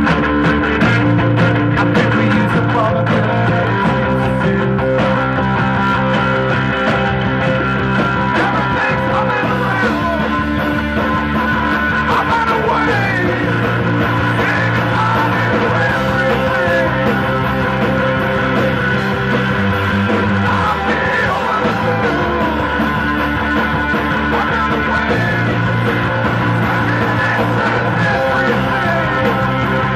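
Live rock band playing loudly without a break: electric guitar, electric bass and a drum kit, the bass notes changing every second or two.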